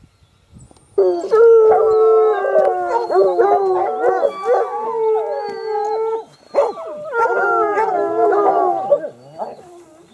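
Several hounds baying and howling together, their long drawn-out voices overlapping. It starts about a second in, breaks off briefly past the middle, then resumes.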